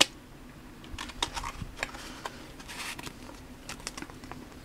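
Pokémon trading cards and a foil booster-pack wrapper handled in the hands: a sharp click at the start, then a scatter of light clicks and ticks with a brief rustle about three seconds in.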